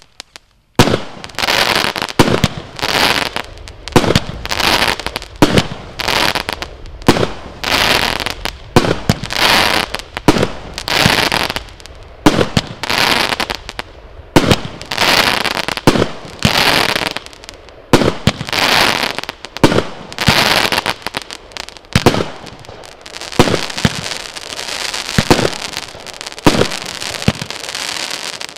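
Pangu Fireworks 'Azure Dragon' consumer firework cake firing shot after shot, about one a second. Each shot is a sharp report followed by a short hissing trail. In the last few seconds the shots come faster and fainter and run together.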